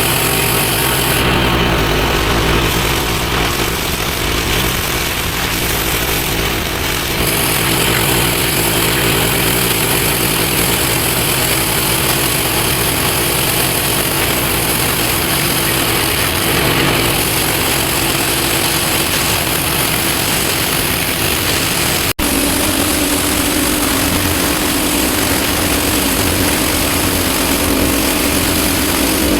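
Engine-driven pressure washer running steadily under load, with the hiss of the high-pressure water jet on block paving. A momentary break about two-thirds of the way through, after which the running sound carries on with a slightly different tone.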